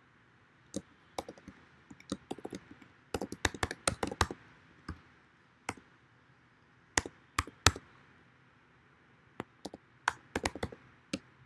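Typing on a computer keyboard: short irregular bursts of keystroke clicks with pauses between them. The busiest run comes about three to four seconds in.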